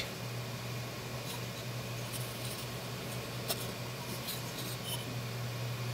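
Faint scattered clicks and scratches of fingers handling a small 3D-printed PLA plastic figure, over a steady low hum.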